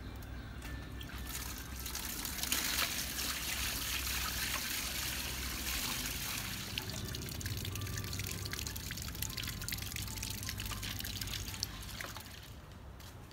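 Tap water running from a plastic barrel's spigot into a metal basin of prawns, with splashing as the prawns are rinsed by hand in it. The flow swells about two seconds in and fades away near the end.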